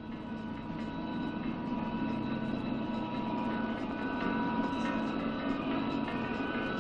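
A steady low mechanical drone, like heavy machinery running, with a few faint steady high tones over it.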